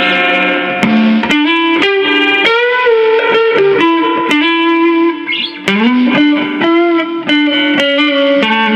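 Electric guitar with Lace Deathbucker humbucker pickups, played through the clean channel of a Fender Princeton 112 Plus amp. It plays a melodic line of picked single notes, with a couple of notes bent upward in pitch.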